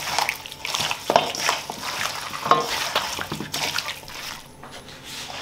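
Hand mixing raw chicken pieces with powder and spice paste in a stainless steel bowl: irregular wet squelches and sticky sounds, with scattered taps against the bowl, thinning out near the end.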